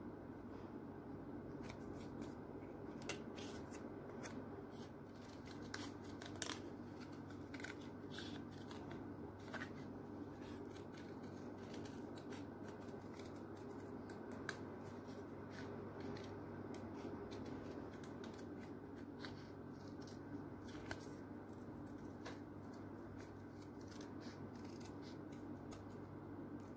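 Scattered light clicks and taps of small objects being handled, irregular and spread through the whole stretch, over a steady low hum.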